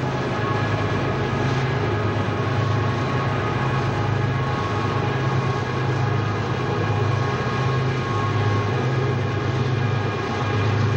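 Four BNSF diesel locomotives leading a heavy grain train down the grade, running with a steady deep drone and a few faint steady high tones over the rumble of the train.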